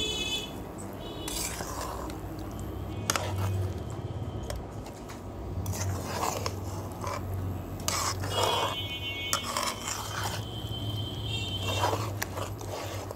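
Metal spatula scraping and knocking against a metal pan while stirring a thick, sticky plum-and-jaggery pickle, in irregular strokes a second or two apart.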